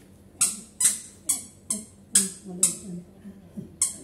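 Squeaky dog toy squeezed over and over, about eight short, high squeaks at roughly two a second, to hold a dog's attention.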